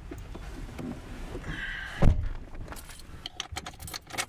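A vehicle door shutting with a single loud thump about two seconds in, just after a brief squeak. Then keys jingle on a lanyard as they are brought to the ignition.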